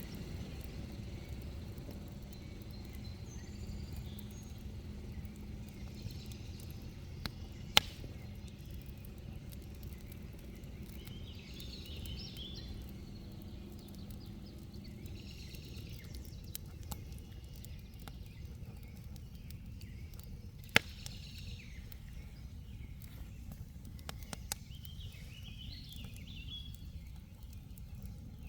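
Campfire burning: a steady low rush of flames with scattered small crackles and two loud sharp pops, about 8 seconds and 21 seconds in.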